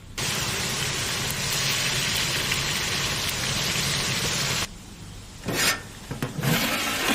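A steady hiss of food cooking in a large pot, cut off abruptly after about four and a half seconds, followed by a short, louder clatter near the end.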